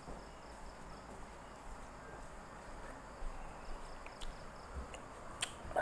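Faint, steady insect chirring in the background, with a few light clicks and taps in the second half.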